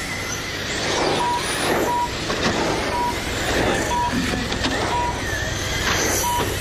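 Radio-controlled race cars running on an asphalt track, their whir swelling and fading as they pass every second or two. Short electronic beeps at one steady pitch sound about once a second.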